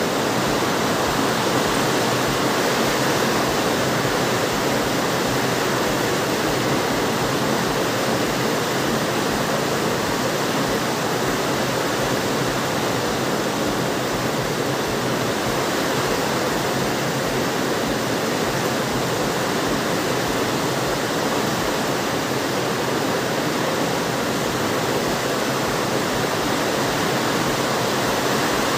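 Steady rushing noise with no breaks and no change in level.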